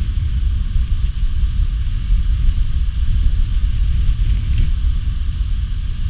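Continuous roar of Dettifoss waterfall, a steady hiss over a deep rumble, with wind buffeting the microphone.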